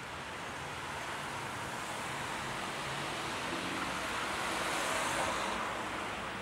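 A road vehicle passing: a rushing tyre-and-engine noise that swells to a peak about five seconds in, then fades.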